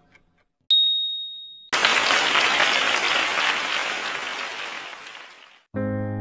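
Quiz sound effects: a single high electronic beep about a second long as the countdown timer ends, then a burst of recorded applause lasting about four seconds and fading away. Piano music starts near the end.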